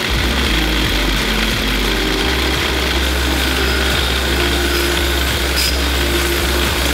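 Belt grinder running steadily while a forged 1045 steel axe head is pressed against the abrasive belt over its contact wheel and ground.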